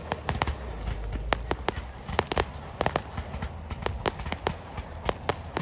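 Campfire crackling and popping: sharp, irregular pops several times a second over a low rumble as the fire burns.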